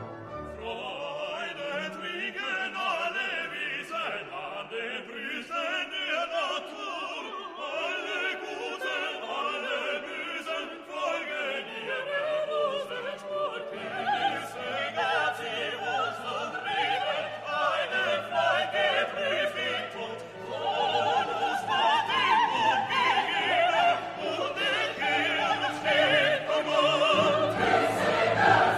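Classical background music: an orchestra with singing voices, with deeper bass parts entering about halfway through and the music growing louder toward the end.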